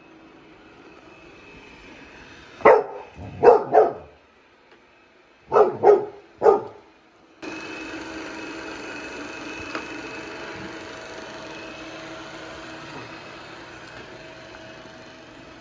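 Golden retriever puppy barking, six short barks in two bursts of three. About halfway through, a robot vacuum cleaner's steady whirring hum takes over and runs on.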